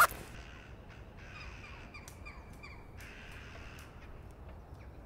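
Crows cawing faintly: a run of short calls falling in pitch between about one and three seconds in, over quiet outdoor background noise.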